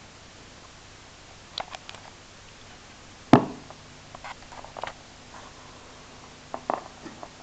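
1936/37 Tefag Tefadyn 162W valve radio being tuned between stations: a low steady hum from the speaker with scattered crackles and clicks, and one sharp click about a third of the way in.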